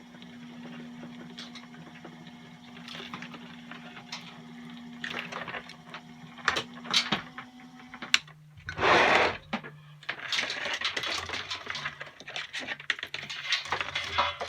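Stripmeister E-250 electric wire stripper running with a steady hum as braided 12-gauge copper wire feeds through it, with scattered clicks and rattles. About nine seconds in there is a loud, noisy rush lasting about a second. After it the hum runs at a lower pitch and the clicking and rattling grow busier.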